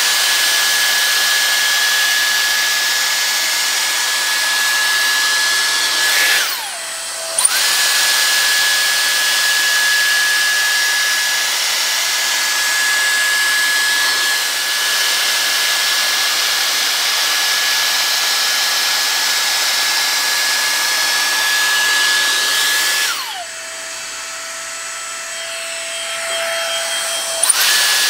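Dyson Airstrait blowing in wet mode: a steady high motor whine over a loud rush of air. Twice the airflow drops to a quieter idle, the whine falling in pitch, then ramps back up with a click. The second lull is longer and comes near the end.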